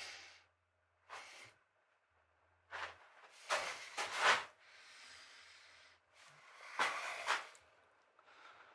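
Steel tools being handled at a bench vise: a bar clamped in the vise, then a die stock fitted onto it and turned to cut a thread. A few separate short scraping and rubbing noises, the loudest about three to four and a half seconds in and again about seven seconds in.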